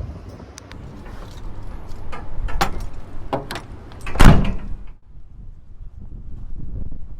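A string of clicks and knocks, then a door slammed shut about four seconds in, the loudest sound here.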